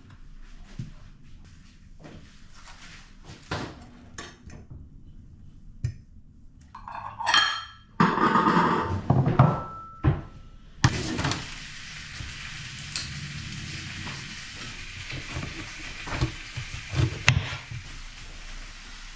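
Kitchen clatter of dishes, pots and cutlery: scattered knocks and clinks, a louder busy stretch a little before halfway, then a steady hiss from just past halfway until shortly before the end, with more knocks over it.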